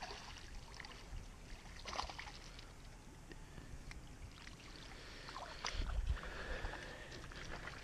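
Small crappie splashing at the water's surface as it is reeled in on light tackle, with scattered sharp clicks and handling noises and a louder low bump about six seconds in.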